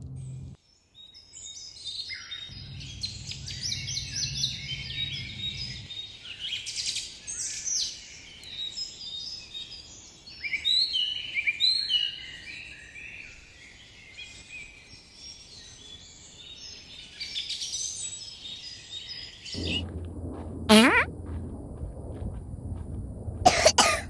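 A dense chorus of many small birds chirping and trilling, which cuts off abruptly near the end. Two loud, sudden sounds follow, each with a falling sweep in pitch.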